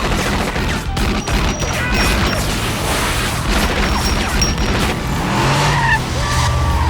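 Film car-chase sound mix: a car engine running hard with crashing impacts, under a music score.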